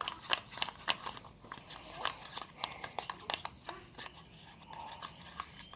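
Clear glue and water being stirred in a bowl: the stirring utensil clicks and taps irregularly against the bowl several times a second, with fewer taps about four seconds in.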